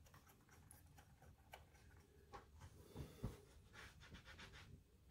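Near silence with faint workshop handling: a few light taps and knocks on metal parts midway, then a short rubbing sound of a cloth wiping the lathe's slide.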